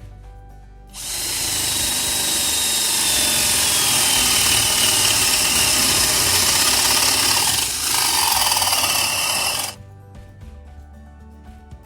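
Hamilton Ultimate cordless drill boring into material for about nine seconds, starting about a second in: a loud whirring with a high motor whine that slowly drops in pitch under load, a brief let-up near the end, then it stops.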